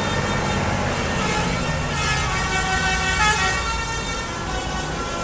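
Road traffic with heavy engines running, and faint musical bus horn notes (telolet horn) sounding in short steps twice during it.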